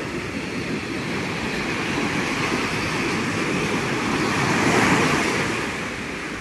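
Sea surf: a steady rush of breaking waves on the beach that swells to a peak about five seconds in and eases off near the end.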